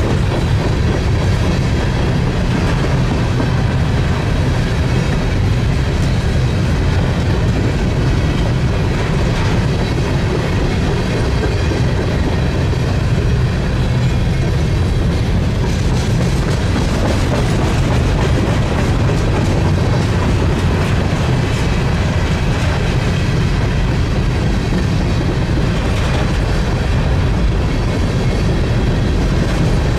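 Freight train of covered grain hopper cars rolling past at steady speed: a loud, continuous rumble with wheels clicking over the rail joints.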